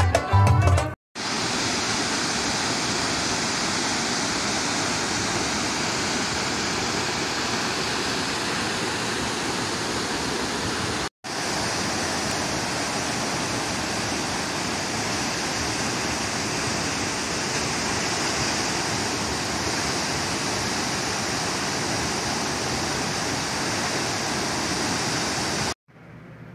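A steady, even hiss like static, with no tune or voices in it; it starts suddenly about a second in, drops out for a moment near the middle, and cuts off just before the end.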